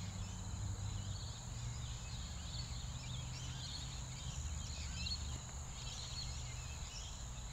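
Faint outdoor ambience of distant birds chirping and calling, many small scattered calls, over a steady low rumble and a thin steady hiss.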